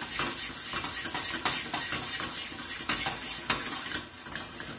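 Shrimp sizzling in a Worcestershire-based sauce in a hot skillet, with frequent sharp clicks and clatter of metal against the pan as they are moved around. The clatter stops near the end, leaving a quieter sizzle.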